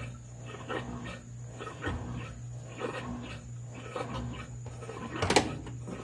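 Consul 13 kg top-load washing machine agitating a full load: a steady motor hum with short strokes about twice a second as the wash plate turns back and forth, and one sharp clunk about five seconds in.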